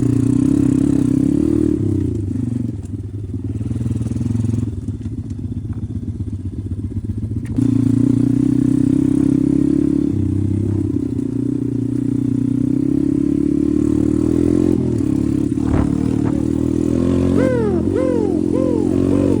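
Pit bike engine running under throttle, easing off for a few seconds and picking back up about seven and a half seconds in, then holding steady. Near the end, a repeating warbling tone comes in over the engine.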